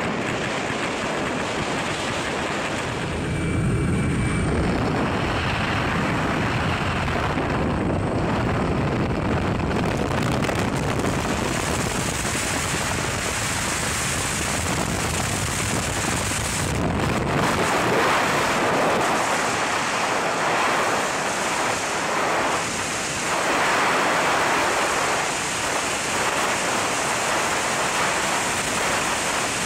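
Wind noise on a skydiver's helmet camera. First the jump plane's engine and the airflow at its open door, then, from a little past halfway, the steady rush of freefall wind after the exit.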